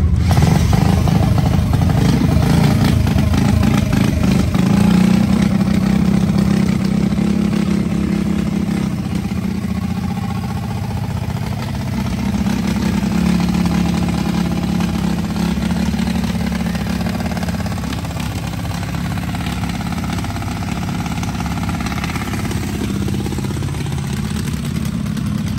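Junior dragster's single-cylinder engine idling steadily.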